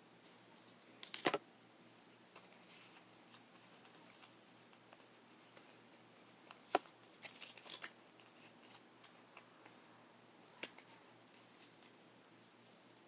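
Pokémon card booster pack being opened and its cards handled: faint rustling with a few sharp crinkles and snaps of the foil wrapper and cards, the loudest about a second in and another near the middle.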